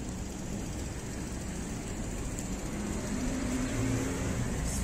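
Street traffic: a motor vehicle's engine running, growing louder with a low tone about three seconds in, over a steady low rumble.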